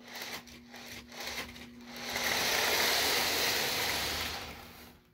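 Model freight train rolling along the layout track: a rushing rolling noise from the wheels and cars that swells about two seconds in, holds, then fades away.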